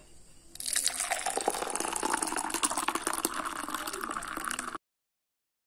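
Bael-fruit sherbet poured in a stream into a steel tumbler, splashing and frothing as the glass fills. The pouring starts about half a second in and cuts off suddenly near the end.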